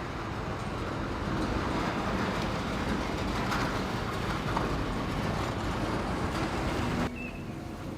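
Sawmill vibrating conveyor shaking a steady stream of bark, wood chips and sawdust, a dense continuous rattle. It gives way abruptly about seven seconds in to a quieter machine hum.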